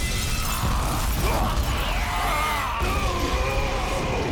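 Cartoon action sound effects of a structure smashing and shattering, with a heavy steady rumble, over dramatic background music.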